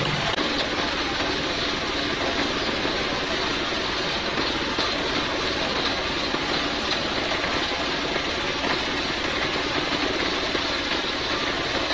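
Stationary engine running steadily, driving a homemade circular-saw bench with its blade spinning.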